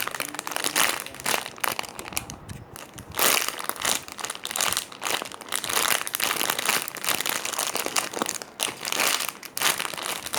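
Crinkling and rustling in irregular bursts as a strawberry-scented slow-rising squishy toy is handled and squeezed.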